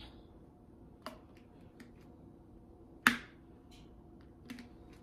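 Diamond painting work: small, sharp, irregular clicks and taps as resin drills are picked up and pressed onto the canvas with a drill pen. The loudest click comes about three seconds in.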